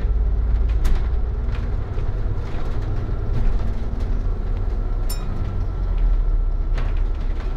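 Inside a moving double-decker bus's top deck: the steady low rumble of the engine and the road, with a few short knocks and rattles from the bodywork.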